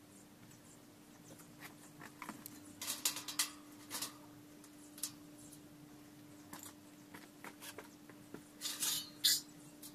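Light handling sounds of work on a steel-angle frame: scattered clicks and taps with two short clusters of scraping rustles, over a faint steady hum.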